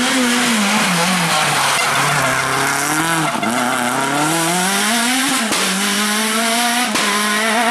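Rally car engine braking, its pitch dropping, then accelerating hard through the gears, with a brief break in the sound at each upshift, about three seconds in and again about five and a half seconds in, and running at steady revs near the end.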